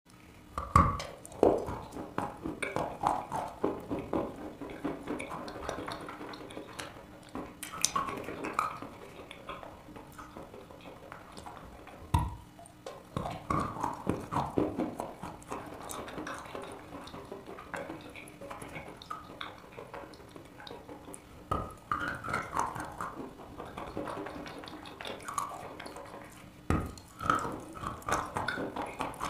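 Close-miked biting and chewing of a block of eating chalk: a wet crunch. Sharp cracking bites come every few seconds, with steady moist crunching of the chalk between them.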